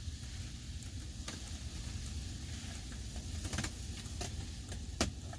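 A few short, light clicks of a laptop being worked to page through photos, over a steady low rumble and faint hiss.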